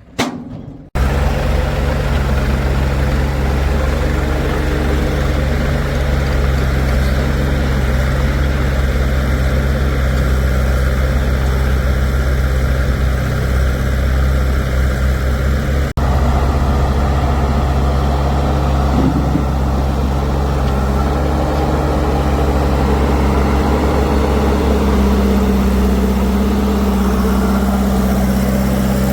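Heavy diesel engine running steadily up close, cutting in abruptly about a second in; the sound breaks off briefly partway through, and the pitch rises a little near the end.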